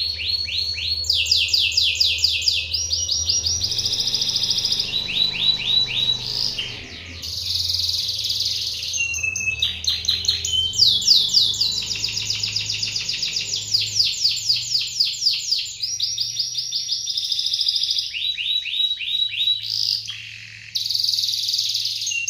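Domestic canary singing without pause in phrase after phrase of fast trills, each a quick run of repeated downward-sweeping notes, with brief breaks about seven seconds in and near the end. This is 'gacor' song, the kind played as bait to set other canaries singing. A faint low hum runs underneath.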